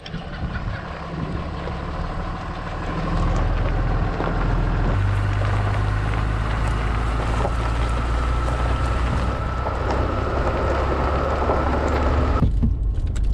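Pickup truck engine and tyres on gravel as the truck drives off, heard from outside at the side mirror with wind on the microphone. The steady engine hum grows louder about three seconds in as the truck gets moving.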